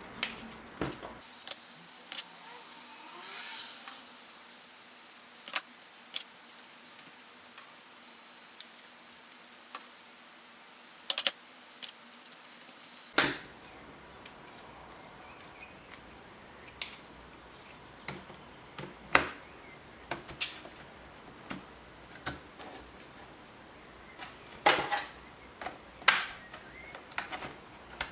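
Scattered clicks, taps and light metal rattles of small hardware being handled during a laptop hard-drive-to-SSD swap.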